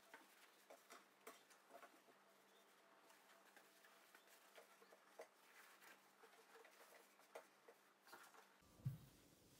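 Faint, scattered light taps and clicks of small household items being handled and set down, with one soft thump near the end.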